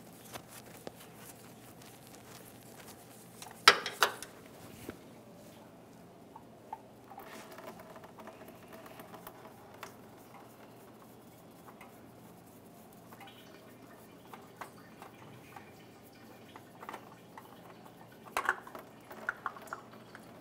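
Quiet handling sounds as a gloved hand unscrews a spin-on oil filter from the engine: faint rustling and scraping with scattered small clicks and knocks, two sharper knocks about four seconds in and a cluster of knocks near the end.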